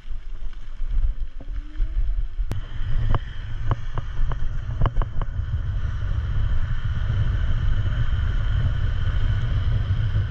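Electric scooter ridden at speed: wind buffets the microphone with a low rumble throughout. A handful of sharp clicks and knocks come about three to five seconds in, and a steady high whine sets in from about six seconds on.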